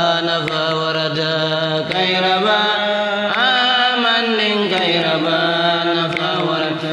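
Islamic devotional chanting by a single voice, holding long notes and sliding ornamentally between pitches.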